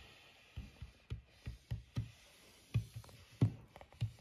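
A small plastic doll hopped across a wooden tabletop: a string of soft, irregular thumps, about two or three a second.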